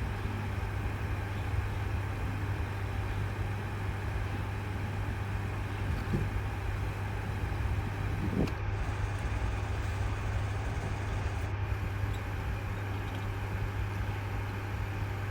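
A steady low mechanical hum, like an engine or motor running, with two faint light knocks in the middle.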